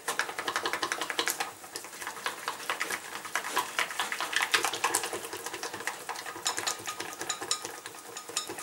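Wire whisk rapidly clicking and scraping against the sides and bottom of a small stainless steel saucepan, whisking an orange sauce.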